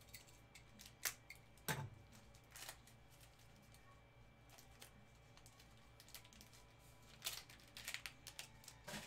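Faint handling of trading cards and card packs in gloved hands: soft rustling with a few sharp clicks and taps about one and two seconds in, and a quick cluster of them near the end.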